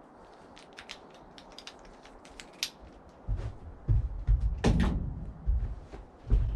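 Sawn lumber being handled: a few light taps, then heavy wooden thuds and knocks, the loudest about halfway through.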